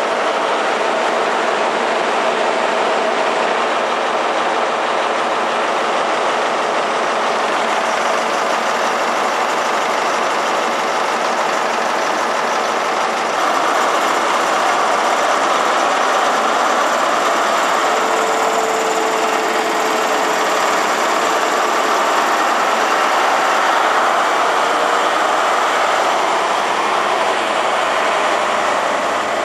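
High Speed Train (InterCity 125) Class 43 diesel power car running loudly at close range, a steady engine noise that steps up in level about a third of the way through.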